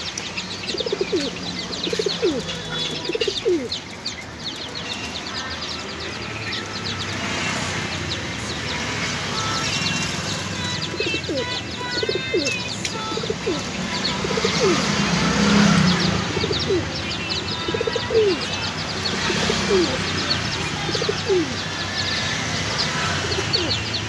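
Jacobin pigeons cooing again and again, each coo a short falling note, over a constant chatter of small birds chirping.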